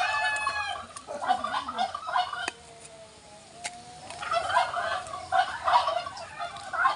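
Backyard poultry calling. A rooster's crow trails off at the start, then turkeys gobble in rapid runs from about four seconds in.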